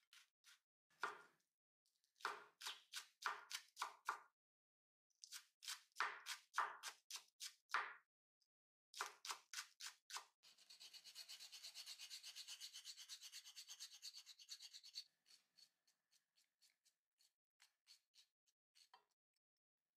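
Kitchen knife cutting a Japanese long onion (negi) on a wooden cutting board: groups of separate cuts, then about four seconds of very rapid fine mincing, then a few light taps.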